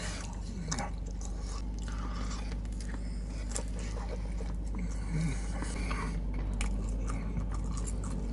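A person biting and chewing pepperoni pizza close to the microphone, the crust giving short crunches, over a steady low hum.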